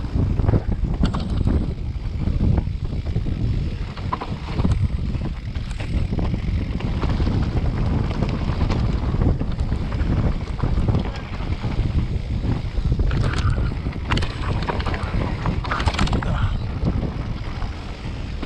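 Mountain bike tyres rumbling over a stony, rutted track, with wind buffeting the camera microphone. Frequent small clicks and knocks from stones and the bike's frame and chain rattling over the rough ground, busier near the end.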